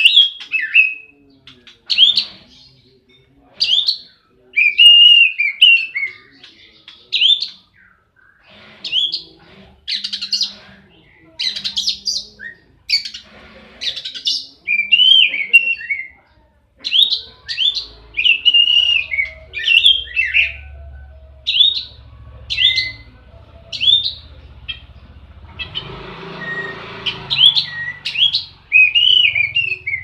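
Oriental magpie-robin (kacer) singing in aggressive fighting mode. It gives short, loud whistled phrases that slide up and down, one after another about every second with brief gaps between.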